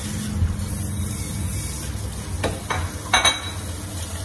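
Kitchen tap running onto pig's trotters in a stainless steel sink as they are rubbed clean by hand, with a few sharp knocks about two and a half and three seconds in.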